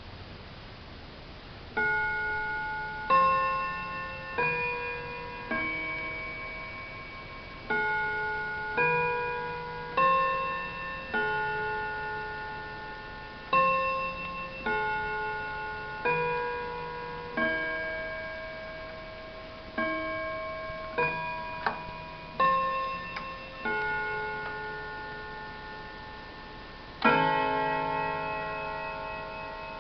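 Sorel table chime clock ticking, then playing its chime melody: single struck notes, each ringing out and fading, about one a second, with a louder, fuller strike near the end.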